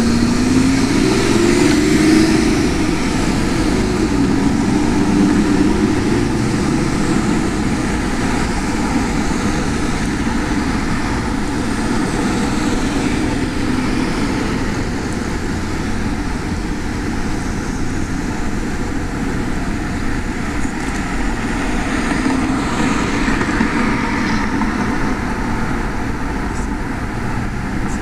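City street traffic heard from a moving bicycle, with wind rumbling on a chest-mounted camera. A passing vehicle's engine rises and falls in pitch over the first few seconds, then a steady traffic hum continues.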